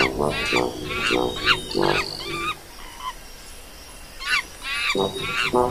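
Chimpanzee cries from an animated cartoon: a series of short, pitched hoots and shrieks with falling pitch. They pause for a moment in the middle and come again, loudest near the end.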